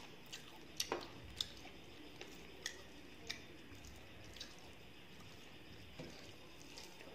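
Close-up eating sounds: chewing, with soft wet squishes as fingers mash and mix rice on a metal plate. About nine short, sharp clicks are scattered through it, most of them in the first few seconds.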